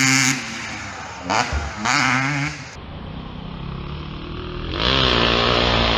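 KTM 250SX two-stroke motocross engine revving hard and backing off: a few quick surges of throttle, a quieter spell, then a loud pull up through the revs about five seconds in.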